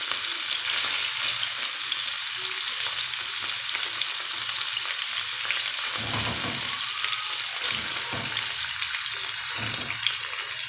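Chopped turkey sizzling steadily in oil and butter in a glass frying pan, with a few soft thuds as tomato wedges are laid into the hot fat, starting a little past halfway.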